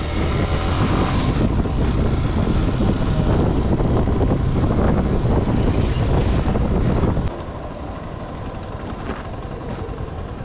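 Motorcycle under way: engine running with wind and tyre rumble on a rough road. The noise drops suddenly about seven seconds in and carries on more quietly.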